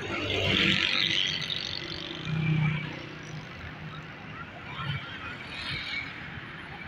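City road traffic: vehicle engines and tyre noise, swelling louder about a second in and again about two and a half seconds in, when a low engine hum comes through.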